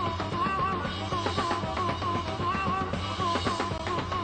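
Rock band playing live: a harmonica wails with repeated bending, wavering notes over a pounding drum kit and a steady low bass line.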